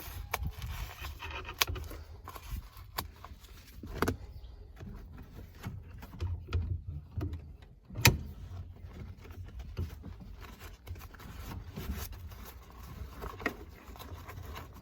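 Carpet and insulation padding being worked into a car's floor by hand: rustling and handling with scattered clicks and knocks, the sharpest knocks about four and eight seconds in.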